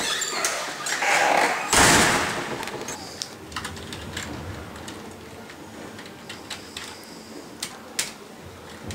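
A door banging about two seconds in, followed by scattered clicks of computer keyboard keys being typed.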